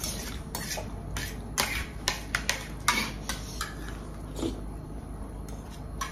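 Eating sounds at a meal: a string of irregular short clicks and smacks from chewing and from food being taken from a plate, with light clinks of dishes.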